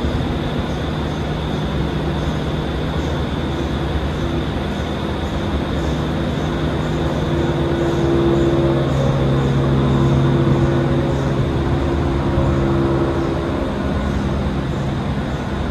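Roosevelt Island Tramway aerial cabin in motion: a steady rumble and hiss with low mechanical hum tones that shift in pitch, a little louder about eight to eleven seconds in.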